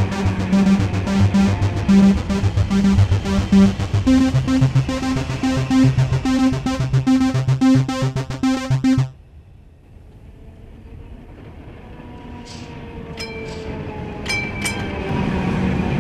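Electro-pop synthesizer music with a pulsing sequenced bass line, which stops abruptly about nine seconds in. Then a tram is heard approaching, its running noise growing steadily louder with a slowly falling tone and a few short, sharp high sounds.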